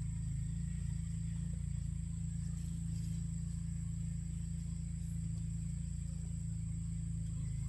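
Steady low drone of an engine running without change, with a thin, steady insect whine high above it.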